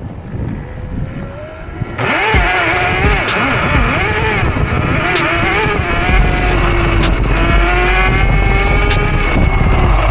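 Wind rumbling on the microphone and a faint rising whine from the electric minibike's motor as it speeds up. About two seconds in, loud music with a steady beat and a singing voice cuts in suddenly.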